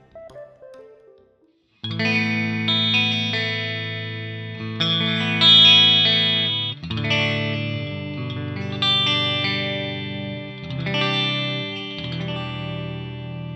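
Greco SE 600 Stratocaster-style electric guitar on its neck pickup, played through a Laney VH100R valve amp with the bright switch on and room reverb added. Chords ring out from about two seconds in and change every second or two.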